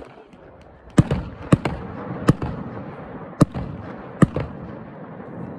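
Fireworks going off: about six sharp bangs at uneven intervals over four seconds, each followed by a rolling echo that carries on between them.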